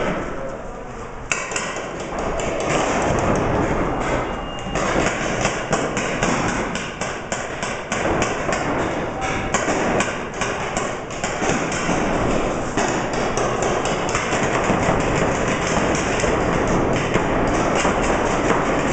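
Paintball markers firing in rapid, irregular volleys, with shots and ball impacts overlapping into a dense clatter. There is a brief lull about a second in.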